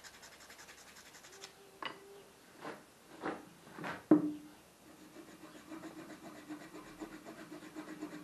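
Steel plane iron scraping and rubbing against the wooden bed of a handmade hand plane, with a few light knocks and a sharper one about four seconds in, then steady rubbing. The graphite rubbed onto the iron marks the high spots of the bed that still need paring flat.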